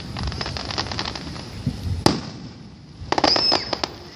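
Fireworks going off: a run of crackling pops, one sharp bang about two seconds in, then a quick rattle of pops about three seconds in.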